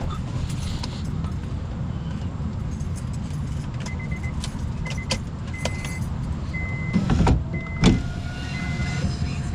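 A car's steady low running rumble, with an electronic warning chime beeping in short, evenly spaced pips from about halfway in. Two loud knocks come near the end.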